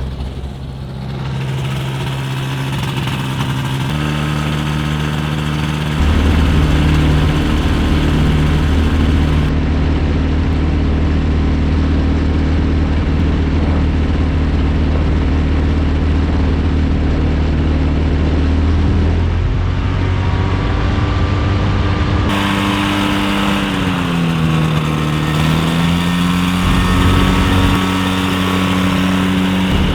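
Ultralight aircraft's Rotax engine running steadily at low power, stepping up a few seconds in and dipping briefly in speed before recovering near the end.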